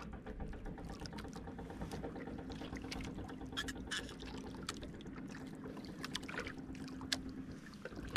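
Sea water lapping and trickling against the hull of a small outrigger boat, with scattered small splashes and knocks and a faint steady hum underneath.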